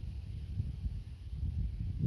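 Wind buffeting the microphone: a gusty low rumble that starts suddenly and keeps rising and falling.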